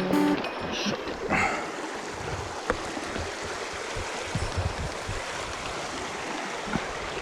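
Mountain stream water rushing steadily, with a single sharp click a little under three seconds in.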